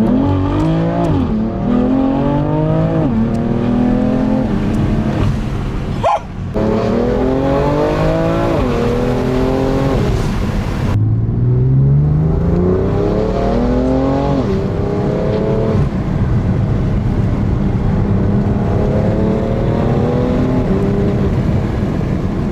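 BMW F80 M3's S55 twin-turbo inline-six with an equal-length midpipe, pulling hard through the gears. Its exhaust note climbs in pitch and drops back at each upshift, many times over, with a couple of abrupt cuts between pulls.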